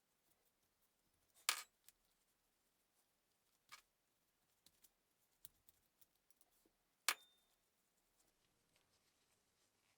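A few sharp clicks or clinks of small hard objects against each other, the loudest about a second and a half in and again about seven seconds in, with a weaker one between and faint ticks scattered through otherwise near silence.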